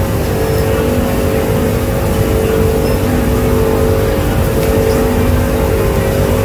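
Machinery running steadily: a loud low rumble with a constant hum.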